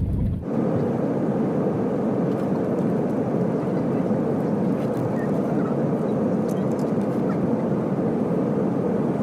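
Steady rushing noise of a passenger jet heard from inside the cabin. About half a second in, a low rumble gives way abruptly to a brighter, even rush.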